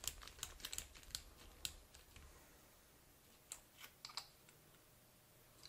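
Faint, irregular small clicks and ticks of a diecast toy car's metal base and parts being handled and fitted back together with a small hand tool. There is a quick run of clicks in the first two seconds, then three more a little past the middle.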